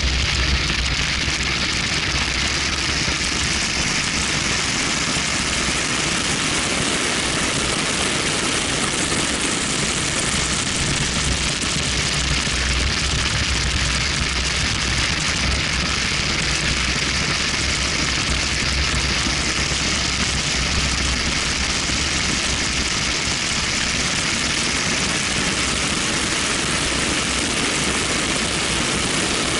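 Steady roar of wind rushing over a camera mounted on the outside of a BMW 1M at track speed, with deep rumble, tyre and road noise and the car's running engine mixed in.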